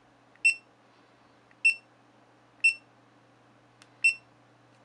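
GoPro HD Hero 2 camera with LCD BacPac giving four short, high beeps about a second apart, one for each button press as the settings menu steps from one item to the next.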